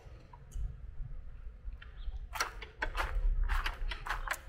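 A quick series of sharp clicks and rattles of a key and plastic catches being worked on a parked motor scooter, bunched in the second half, over a low rumble.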